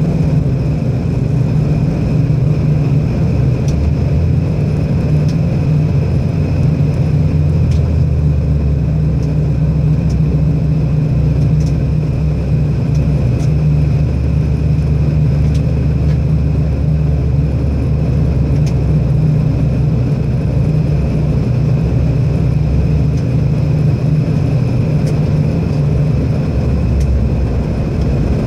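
Airliner cabin noise in flight: a steady low drone of engines and rushing air, with a faint steady high whine above it.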